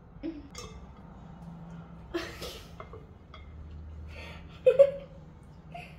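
Quiet kitchen handling noises, soft clicks and rustles, as cookie dough is scooped from a mixing bowl and rolled by hand, over a low steady hum. A short burst of voice comes about three-quarters of the way through.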